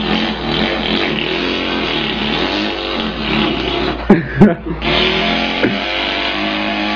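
A man imitating a running engine with his mouth: a continuous buzzing vocal engine drone, broken a little after four seconds by a couple of sharp pops before the drone picks up again.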